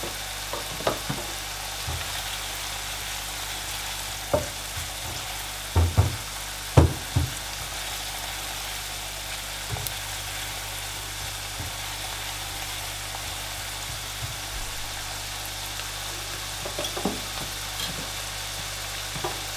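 Chopped onion frying in butter and oil in a pan, a steady sizzle. A few sharp clacks of utensils come through it, from stirring with a spoon and cutting on a board.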